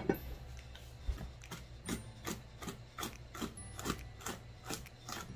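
Walnuts being chopped: an even run of short, sharp clicks and knocks, about two to three a second.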